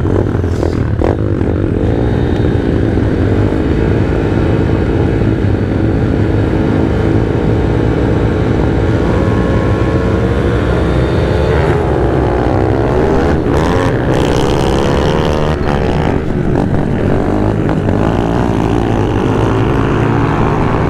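Pit bike engines running hard as a pack of riders pulls away on a dirt motocross track; the nearest bike's engine revs rise and fall repeatedly through acceleration and gear changes.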